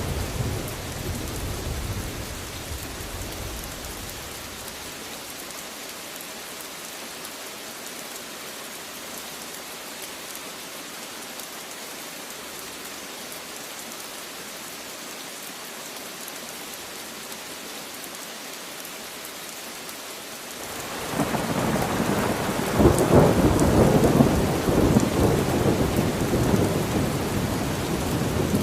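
Steady rain with thunder. A low thunder rumble dies away over the first few seconds, leaving an even rain hiss. About two-thirds of the way through, a loud peal of thunder breaks in suddenly and rolls on, rumbling to the end.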